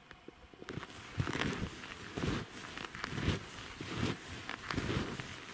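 Wide hunting skis crunching and swishing over wind-packed snow crust, one stride after another at a steady walking pace.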